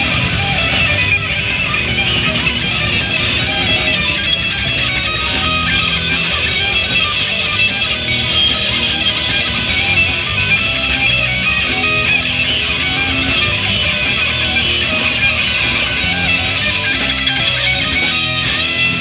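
Live rock band playing loud, guitar-driven heavy music with distorted electric guitars.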